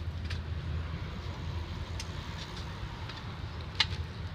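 Steady low outdoor rumble with a few light clicks and one sharp click near the end.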